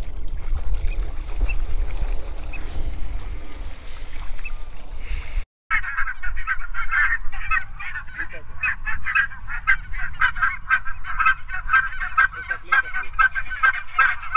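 A flock of geese honking: many short calls overlapping in a dense, continuous chatter that starts abruptly after a cut about five seconds in. Before it there is only a low rumble.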